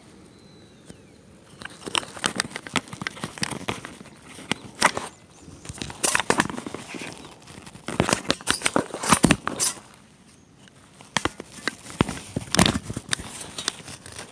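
Irregular clusters of sharp clicks, knocks and rustling, starting about two seconds in and easing off briefly around the middle, like gear being handled or someone moving about.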